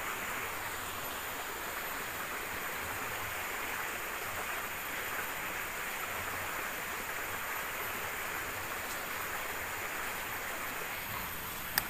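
Small jungle stream flowing, a steady rush of water. A single sharp click comes just before the end.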